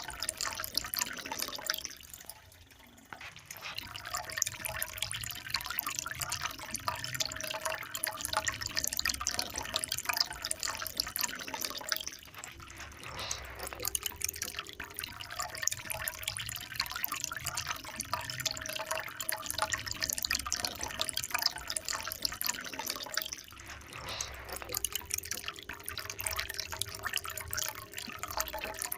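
Running water splashing and dripping steadily, dipping briefly three times, with a faint steady tone underneath.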